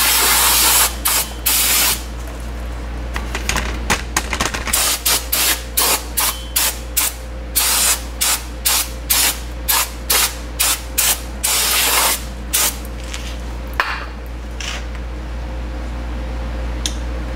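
Aerosol brake cleaner sprayed onto a rear drum brake assembly: a long hissing blast, then a quick run of short squirts, two or three a second, until it stops about thirteen seconds in.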